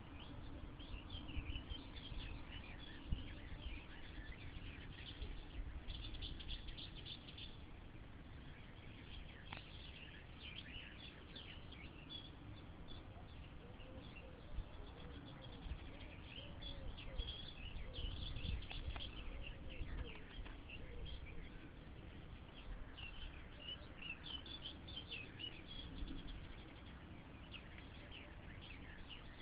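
Small birds chirping and singing on and off over a low, uneven rumble, with a few faint clicks.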